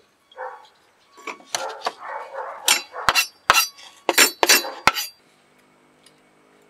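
Kitchen knife chopping on a wooden cutting board: softer knocks and scrapes, then a run of sharp chops, the loudest about three to five seconds in.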